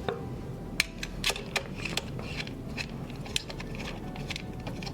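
Scattered light clicks and taps of small metal parts and a screwdriver as the relay of a DVC6200 digital valve controller is set back in place and its four screws are driven in.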